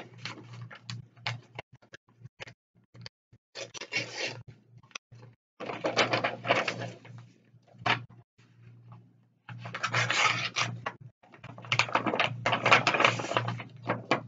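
Sheets of paper rustling and crinkling in several bursts as they are handled and leafed through on a desk, with short taps and clicks in between.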